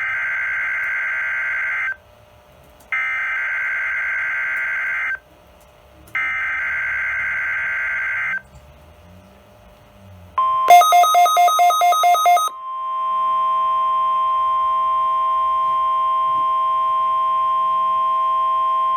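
NOAA Weather Radio SAME alert header: three identical bursts of buzzing digital data tones, about two seconds each with a second's gap, heard through a Midland WR120 weather radio's speaker. A couple of seconds after the last burst the steady 1050 Hz NOAA warning alarm tone begins, with a quick run of rapid beeps over its first two seconds, and holds steady to the end.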